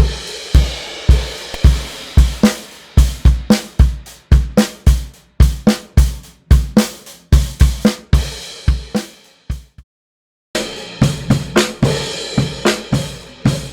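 Recorded drum kit groove played back through the Sphere Eclipse C console's 823 EQ, switched in on the kick channel to tighten the kick: deep kick thumps with snare and hi-hat. The playback stops for about a second near ten seconds in, then drumming starts again with more cymbal wash.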